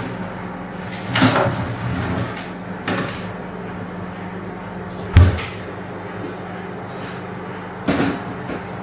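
Cupboard doors and things being handled, giving four separate knocks and clunks. The loudest is a low thud about five seconds in, and a steady low hum runs underneath.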